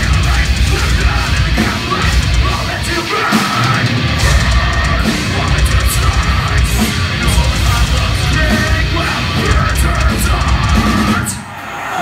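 Metalcore band playing live with heavy guitars and drums, loud and dense. The sound thins and drops briefly near the end, then comes back in.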